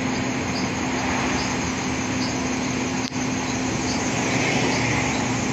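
Steady machine hum in a shop: a constant low tone under an even hiss, with faint high chirps repeating every half second to a second. The sound drops out for an instant about three seconds in.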